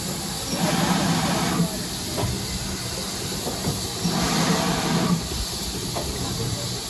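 Steady hiss of escaping steam from a standing steam locomotive, with indistinct voices coming and going twice.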